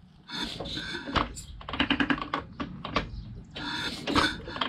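Harley-Davidson Ironhead Sportster engine being turned over with its spark plugs out, to bring a pushrod's lifter to its lowest point. It gives a run of rapid mechanical clicks and rattles, with two short rushes of noise, one early and one near the end.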